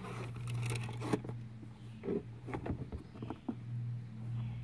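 Cardboard shoebox and tissue paper being handled: scattered rustling and a few light knocks, with a denser crinkly rustle about a second in, over a steady low hum.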